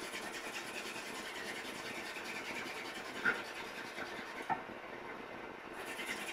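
Hand-drill friction fire: a wooden spindle twirled rapidly between the palms, grinding in a fireboard notch with a steady rapid scratching and rubbing. Two sharp clicks stand out a little past the middle.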